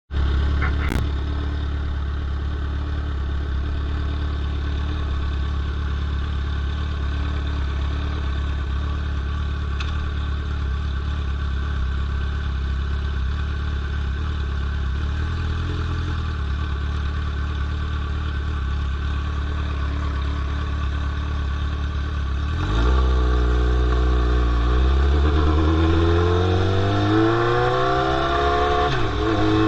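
Straight-piped 2003 Yamaha R1 inline-four idling steadily. About 22 seconds in, the revs climb, fall back and climb again several times as it accelerates, getting louder.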